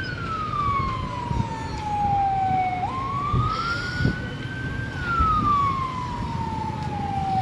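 Fire engine siren wailing in a slow cycle of about five seconds: the tone falls steadily for about three seconds, jumps up, rises and holds, then falls again. A low rumbling noise with a few dull knocks lies underneath.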